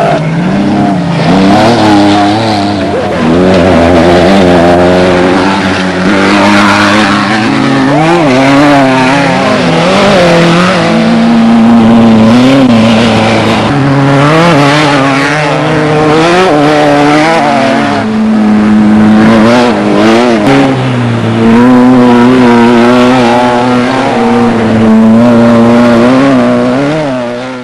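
Off-road desert race vehicle engines running hard, their pitch rising and falling over and over as they rev, and dropping away at the very end.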